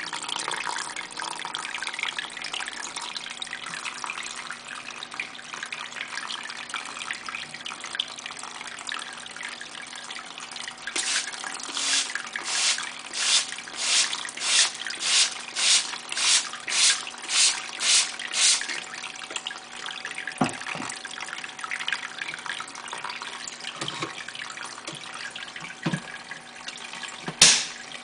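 Small terrarium water pump trickling water steadily. About eleven seconds in comes a run of about a dozen short hisses, roughly two a second, and near the end a few soft knocks and a sharp click.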